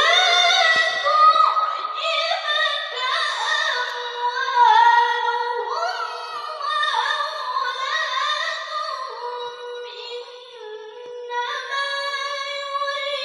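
Female Qur'an reciter (qari'ah) chanting in Arabic in the melodic tilawah style into a microphone, with long held notes and ornamented runs. The voice pauses briefly about ten seconds in, then carries on.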